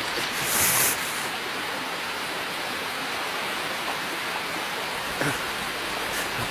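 Steady rushing hiss of water ambience, without music. About half a second in there is a brief louder hissing swish, and near the end a couple of faint short knocks.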